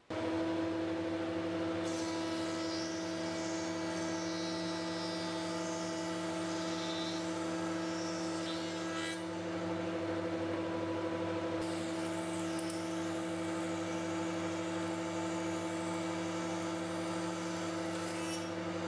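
SCM Minimax FS41 planer/thicknesser switched on, coming up at once to a steady running hum. A thin iroko rail is fed through the thicknesser twice, and each pass adds a cutting hiss that lasts about six or seven seconds.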